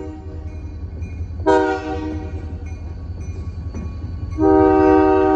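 Diesel locomotive's multi-note air horn sounding a short blast about a second and a half in, then a long blast starting near the end. This is the short-then-long close of a crossing signal. Under it runs the steady low rumble of the locomotive.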